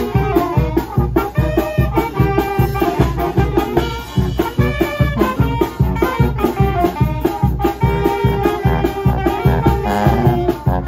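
Live brass band with sousaphones playing a lively dance tune: horns carry the melody over a steady, quick beat.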